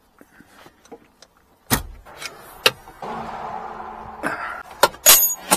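Knocks and metallic clanks of hands and tools working in a Daihatsu Hijet's under-seat engine bay, around its supercharger belt drive. A loud thump comes about two seconds in, a steady rush lasts about a second in the middle, and a few sharp metal clinks come near the end.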